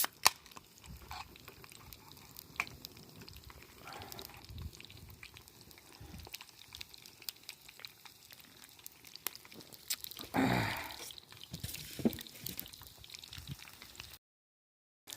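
Vegetables deep-frying in oil over a campfire: scattered sharp pops and crackles over faint bubbling, with a louder rush of sizzle about ten seconds in.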